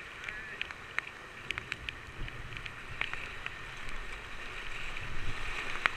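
Whitewater rapids rushing around a kayak, heard from a camera on the boat, with frequent sharp splashes and drips of spray hitting the camera and paddle strokes in the water. The rush grows louder over the last couple of seconds.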